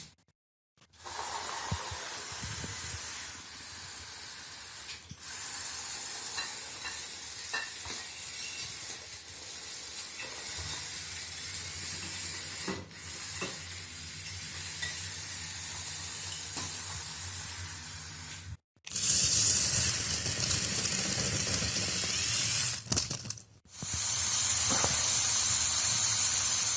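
Lego Technic tracked vehicle running, its electric motors, plastic gears and treads giving a steady hissing rattle with small clicks. The sound cuts out abruptly twice, and is louder after each break.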